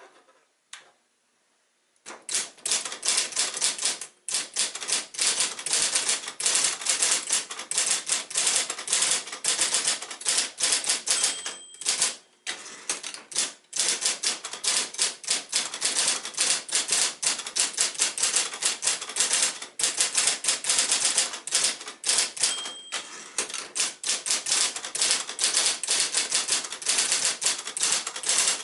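1968 Royal Apollo 10 electric portable typewriter, built by Silver-Seiko, typing at speed: a fast, continuous run of motor-driven key strikes on paper, starting about two seconds in, with a few short pauses.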